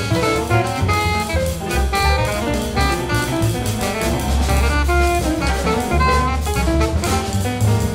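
Free-jazz quartet playing: alto saxophone running through quick short notes over bass and a busy drum kit with cymbals, piano in the group.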